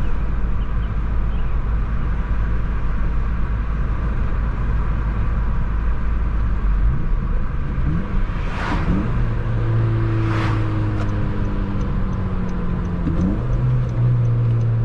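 Car engine and road noise from the driver's seat while driving; the engine speeds up about seven seconds in and then holds a steady pitch. Two short whooshes of passing traffic come near the middle, and a faint regular ticking runs through the second half.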